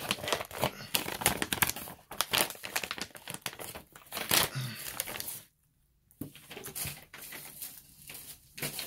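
Plastic packaging pouch crinkling and rustling as it is handled and opened, with a plastic-wrapped case drawn out of it. A brief dead silence breaks it just past halfway.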